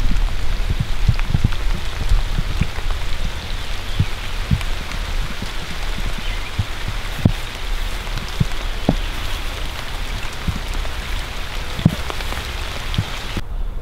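Steady rain falling on a creek's surface and the surrounding leaves, a dense even hiss with irregular heavier drops tapping close by.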